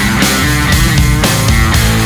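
Distorted electric guitar playing a rock riff through an amp modeler's Marshall JCM 800 amp model, over a drum backing.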